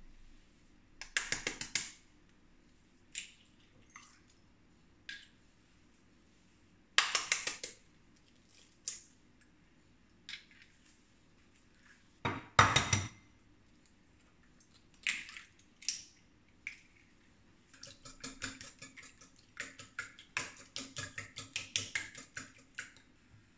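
Eggs cracked on the rim of a glass bowl: a few sharp cracks and taps with pauses between, the loudest about halfway. Then a wire whisk beats the eggs in the glass bowl, a fast run of light clinks and taps through the last several seconds.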